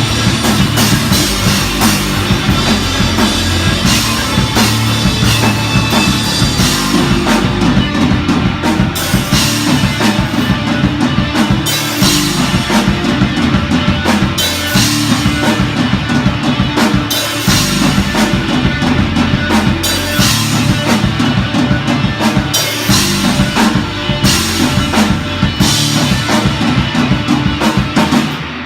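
Rock band playing loudly, with the drum kit driving the music on bass drum and snare.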